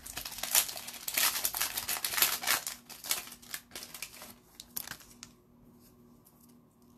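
Plastic wrapper of a hockey card pack crinkling and tearing as it is opened, for about five seconds before it stops.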